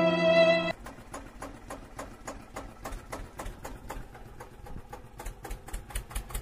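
Violin music ends about a second in; then a toy tractor rolling across sand gives quiet, rapid, regular clicking from its plastic wheels and gears.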